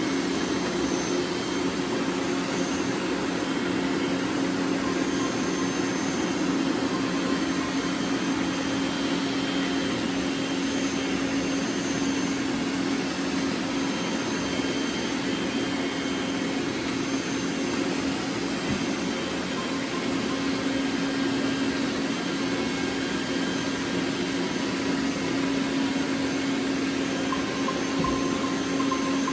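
Several robot vacuums running at once: a steady whirring hum with a constant low drone.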